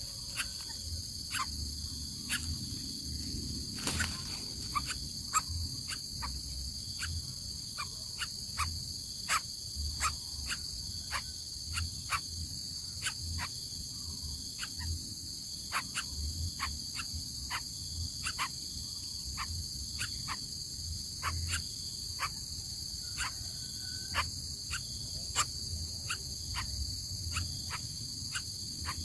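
Steady high-pitched chorus of insects, such as crickets, running without a break, with irregular sharp clicks about one or two a second.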